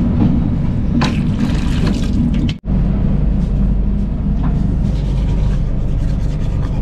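Tap water running onto a toothbrush and into a stainless-steel washbasin aboard a moving passenger train, over the train's steady low rumble. The water stops at a sudden break about two and a half seconds in, and the train's rumble carries on alone.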